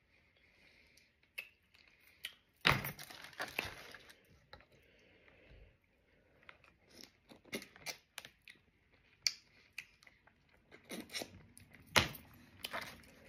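Mukbang eating sounds of steamed oysters: irregular sharp clicks and clatter with chewing, two louder clacks about two and a half seconds in and near the end.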